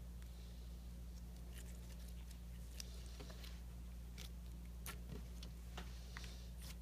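Slime mixed with beads and buttons being squished and poked by hand, giving scattered small clicks and pops, over a steady low electrical hum.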